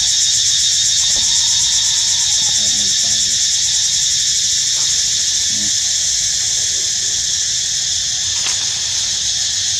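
Loud, steady high-pitched insect chorus, a continuous shrill buzz with a fine pulsing texture. A few faint short calls come through underneath it.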